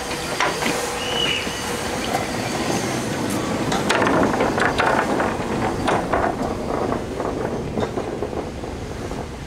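A hand-turned railway turntable rotating under a narrow-gauge steam locomotive, rumbling with a run of clicks and knocks from the mechanism. A louder rush of noise swells about four seconds in and eases after about two seconds.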